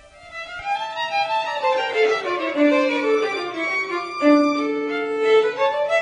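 Two violins playing a slow duet in smooth bowed notes, the two parts moving downward together and then holding long notes near the end.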